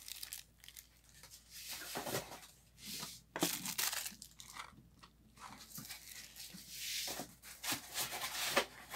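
White foam packing inserts and a cardboard box being handled: scuffs and rustles of foam against cardboard in short, irregular bursts.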